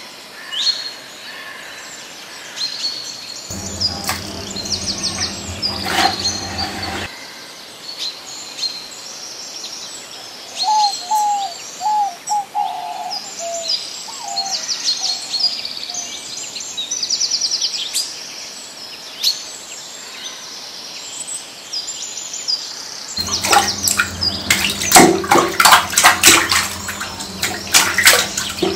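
Several birds chirping and trilling in quick short calls, with a run of lower, falling notes about halfway through. A low rumble with sharp clicks comes in for a few seconds early and again, loudest, near the end.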